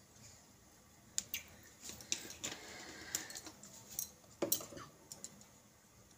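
Light clicks and knocks of a plastic cooking-oil bottle and its cap being handled and set aside after oil is poured into an aluminium kadai, a handful of separate taps spread over a few seconds.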